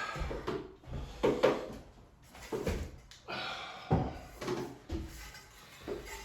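Lengths of wallpaper being handled on a pasting table: several irregular knocks and thumps, with paper rustling.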